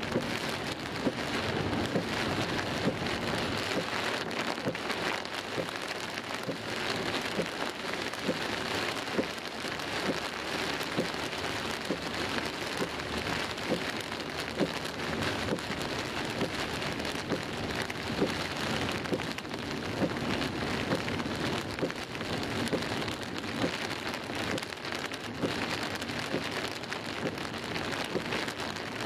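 Heavy rain pelting the car's windscreen and body, heard from inside the car: a dense, steady patter of countless drops.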